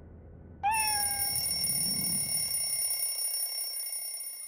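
Timer's cat-meowing alarm going off at the end of the countdown: a single cartoon-style meow about half a second in, over a bright ringing alarm tone that fades away near the end. A low steady white-noise hum underneath stops partway through.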